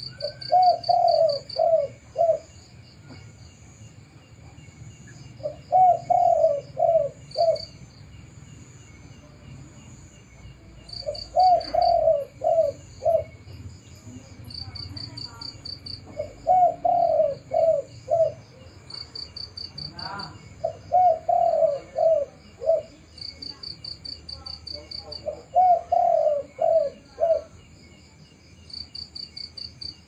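Spotted dove cooing its 'kuk' call: six phrases of four or five low notes, about five seconds apart. High, fast-pulsing insect chirps run steadily behind it.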